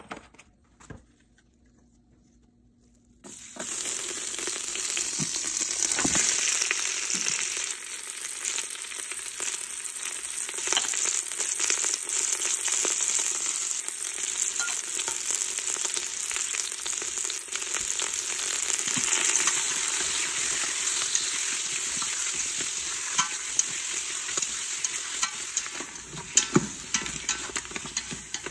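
Pork short ribs and scallions sizzling in hot oil in a stainless steel pot; the sizzle starts suddenly about three seconds in as the food goes into the oil and then holds steady. Near the end, sharp clicks of the food being stirred against the pot join the sizzle.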